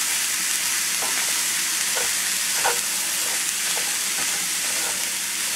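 Ground beef and cooked rice sizzling in a hot cast-iron skillet while a wooden spoon stirs through them, with a few short scrapes against the pan.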